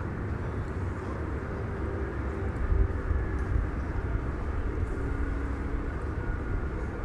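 Steady low rumble of engines and traffic, with a few faint short hums over it.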